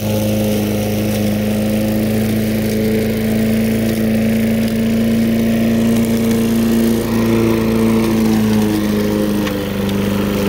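Walk-behind lawn mower's small engine running steadily while cutting grass, with a brief dip in loudness near the end.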